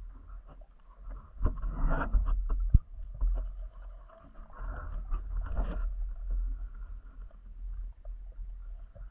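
Muffled underwater sound from a diving camera: a steady low rumble of water with scattered knocks and scrapes, one sharp knock about three seconds in, and swells of rushing noise.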